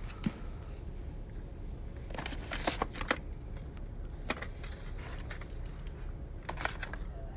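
VHS tapes being handled and taken from a shelf: scattered light plastic clicks and rustling, in a cluster a couple of seconds in, once around the middle and again near the end, over a low steady hum.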